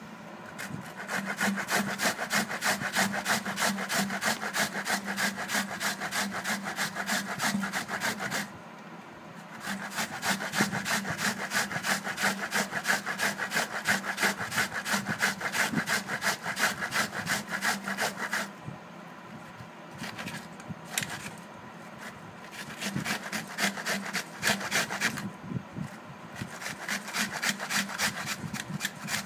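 Red onion being rubbed back and forth on a flat, perforated steel hand grater: a fast, even rasping of grating strokes. It stops briefly about eight seconds in, and again for a few seconds past the middle, before starting up again.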